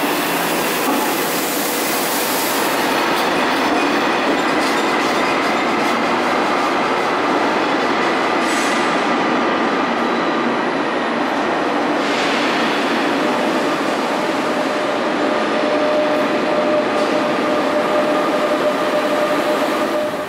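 Double-deck Ouigo TGV high-speed train pulling out along an underground station platform, a steady loud rumble of wheels and running gear with thin steady whining tones mixed in, under the enclosed station roof.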